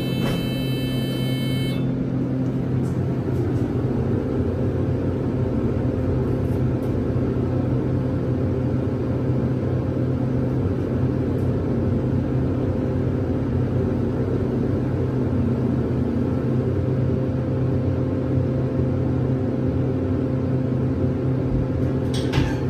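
Elevator car riding up one floor, with a steady hum from its machinery and a loud cab ventilation fan. A high electronic tone sounds as the doors close and stops about two seconds in, and a few sharp clicks come near the end as the car arrives.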